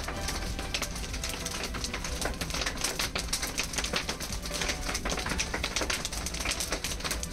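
Typewriter sound effect: a fast, continuous run of key clicks as text is typed on screen.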